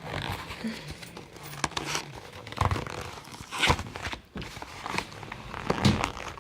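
Toy car packaging being torn and crinkled open by hand: irregular crackling and rustling, with three louder sharp tears or snaps spread through it.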